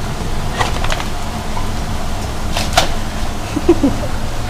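Dogs crowding a metal bowl and eating cut apple and pear pieces: scattered clicks and knocks of teeth, claws and the bowl over a steady low hum, with a couple of short squeaks a little before the end.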